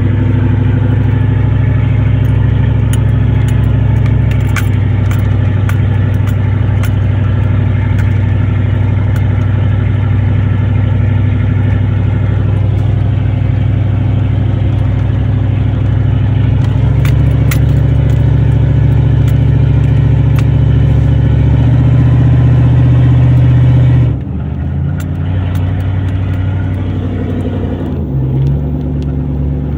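Big-block Chevy 454 (7.4 L) V8 running under way, heard from inside the truck's cab, loud because the exhaust is cut open before the catalytic converter. Its steady drone shifts in pitch a little past halfway and drops off suddenly near the end. Light rattling clicks from the cab come through over it.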